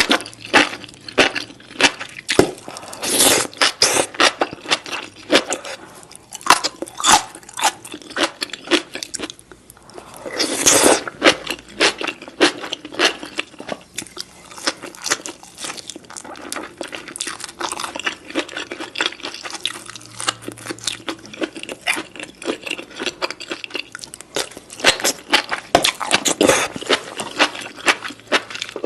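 Close-miked eating: crunchy food being bitten and chewed, a dense run of sharp crunches and crackles with a few louder bites.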